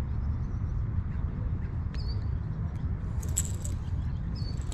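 Low, uneven rumble of wind buffeting the microphone, with a few short high bird chirps, one about two seconds in and another near the end, and a brief crackle a little past three seconds.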